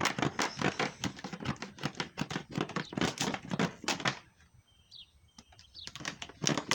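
Knife sawing and scraping at a water-filled object: a rapid run of scratchy clicks, several a second, that stops about four seconds in and starts again near the end.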